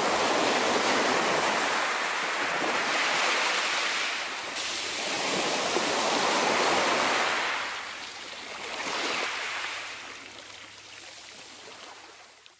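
Small waves breaking and washing up a shingle beach in slow surges a few seconds apart. The sound fades away near the end.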